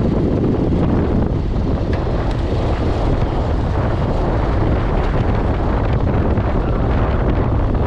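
Wind buffeting the microphone of a camera moving at road-race speed, a steady heavy rushing noise without a break.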